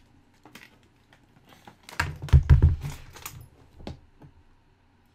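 Handling noise: scattered clicks and knocks as things are moved about, then a cluster of heavy thumps and clatter about two seconds in as an aluminium hard case is lifted and set down on a desk, followed by a few lighter clicks.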